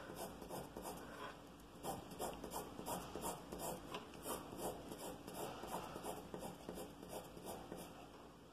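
B graphite pencil scratching on paper in quick, repeated hatching strokes, about three a second. There is a short pause about a second in, and the strokes thin out near the end.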